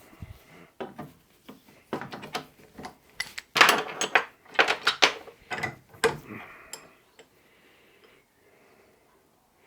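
Hard objects knocking and clattering as they are handled and moved about, a quick irregular run of knocks that is loudest in the middle and dies away about two-thirds of the way through, leaving only faint rustling.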